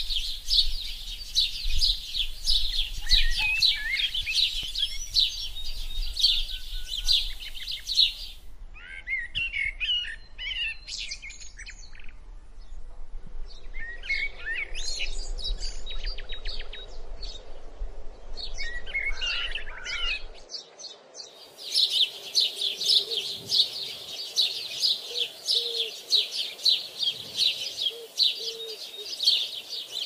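A flock of birds chirping and chattering in a dense, continuous chorus. For several seconds in the middle it thins to scattered separate calls, then the full chorus comes back.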